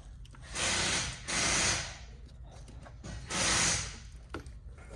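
A person breathing hard close to the microphone: two loud, hissy breaths back to back about half a second in, and another a little after three seconds.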